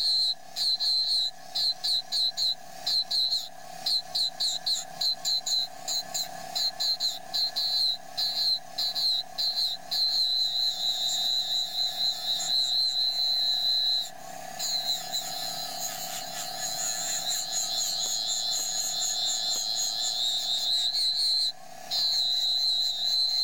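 Power-assisted engraving handpiece driving a graver through a nickel, buzzing with a high whine. For the first ten seconds it comes in short bursts about twice a second, each one a short cut. After that it runs almost continuously, with brief breaks near the middle and near the end.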